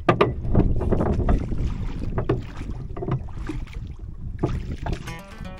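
Wooden oars rowing a wooden rowboat: the blades splash and pull through the water in irregular strokes, with wind rumbling on the microphone.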